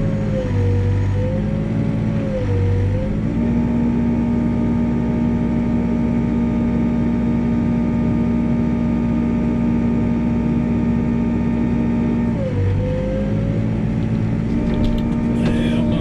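New Holland B95 backhoe's diesel engine running at working speed. Its note dips briefly a few times as the boom and bucket are worked, and holds steady for most of the middle.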